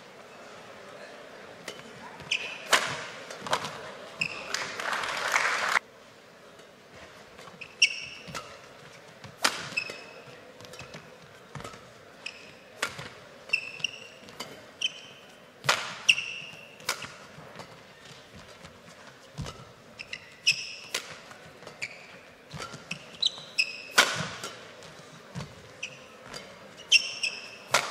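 Badminton singles rally: sharp racket hits on the shuttlecock at irregular intervals, mixed with short high-pitched squeaks of court shoes on the floor. A short noisy burst near the start cuts off suddenly about six seconds in.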